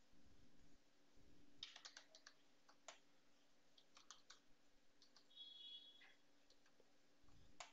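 Faint computer keyboard typing: scattered keystrokes in small clusters, with pauses between them.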